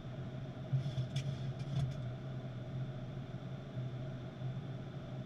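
Steady flight-deck noise of a Boeing 737-800 in flight: a low hum with airflow and equipment noise. A short run of faint clicks comes about one to two seconds in.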